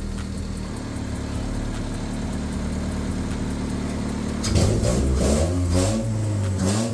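Honda car engine running after a crank-no-start, now firing because its distributor has been jumped straight to constant power, bypassing a suspected short in the engine harness. It idles steadily, then is revved up and down a few times from about four and a half seconds in.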